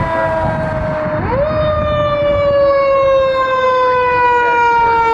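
Fire engine siren wailing: it slides slowly down in pitch, swoops back up about a second in, slides slowly down again, and rises once more near the end. A low rumble runs underneath.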